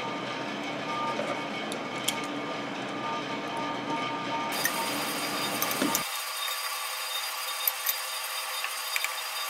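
Steady background hum with a few faint metallic clicks from locking pliers and a headlight adjusting spring being worked onto the inner headlight bucket. The clicks come about two seconds in and twice near the end.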